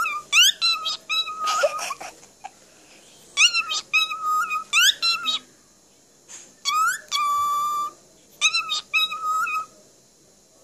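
Cockatiel whistling in a series of short phrases, quick rising chirps mixed with held steady notes, with brief pauses between phrases.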